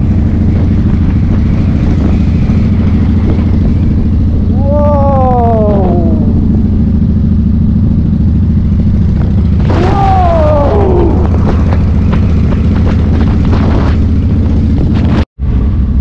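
Yamaha XV1600 Road Star's V-twin engine running steadily while the bike cruises at road speed, heard from the handlebars with wind rush over it. Twice a short tone slides downward in pitch, and the sound cuts out for an instant near the end.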